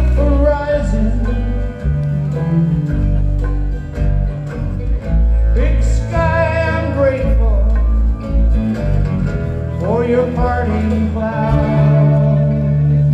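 Live rock band music: guitars over strong, sustained bass notes, with a melody line sliding up in pitch a couple of times.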